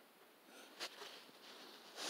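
Faint handling of a plastic toy truck, with one small sharp click a little under a second in and light rustling after it.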